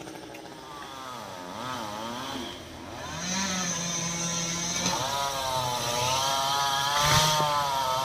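A two-stroke chainsaw running, its engine speed rising and falling, steady for a stretch in the middle; a sharp knock sounds about seven seconds in.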